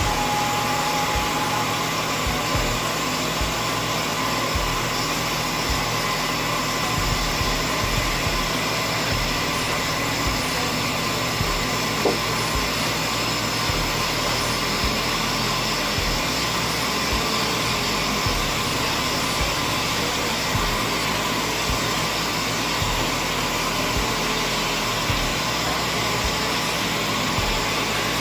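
Steady machine noise with a low hum, from a CNC wire-cutting (wire EDM) machine running in a machine shop, with one faint click about twelve seconds in.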